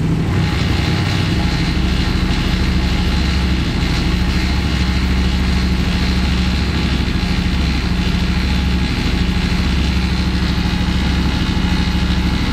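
Yamaha Raptor quad's single-cylinder engine idling steadily.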